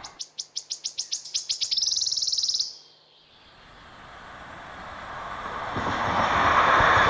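A songbird sings a run of high, sharp notes that speed up into a fast trill and stop abruptly a little before three seconds in. Then an EP07 electric locomotive hauling passenger coaches approaches, its rumble growing steadily louder.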